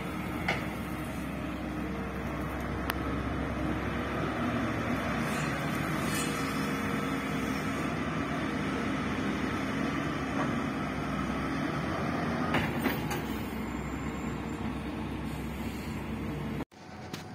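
Tracked hydraulic excavator's diesel engine running steadily under load while it digs out soil, with a few sharp knocks scattered through it. The sound cuts off suddenly near the end and a quieter steady noise follows.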